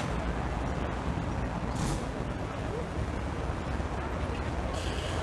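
Steady rumble of street traffic with two short, sharp hisses, one about two seconds in and one near the end.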